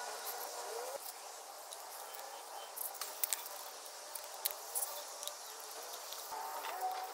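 Faint handling of masking tape on a cylinder head: short squeaks as tape is pulled off the roll, and a few light ticks as it is pressed and torn, the ticks bunched about halfway through.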